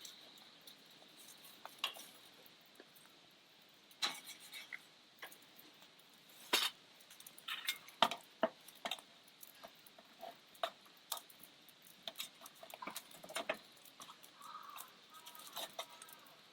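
Scattered light clicks and clinks of tableware while eating, dishes and utensils being handled, with a few sharper knocks in the middle.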